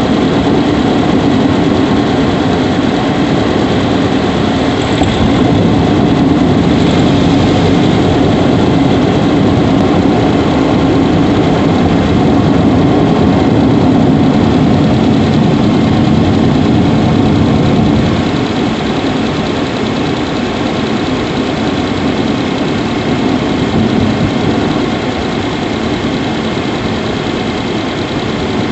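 Subaru Levorg 1.6GT-S's turbocharged flat-four engine idling steadily, heard in the engine bay. The owner is there to chase an intermittent squeaky 'kyuri' noise that grows louder as the engine runs. The level drops a little about two-thirds of the way through.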